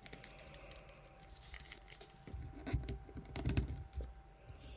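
Light clicks and taps of a hard plastic action figure being handled, with a few louder knocks about three seconds in.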